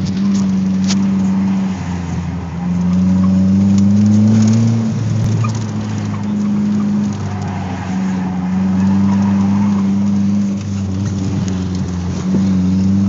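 1987 Dodge Shelby CSX's turbocharged 2.2-litre four-cylinder engine heard from inside the cabin on an autocross run. Its note climbs as the car accelerates and falls away as it eases off, peaking about four seconds in and dropping sharply just after, then rising and falling again.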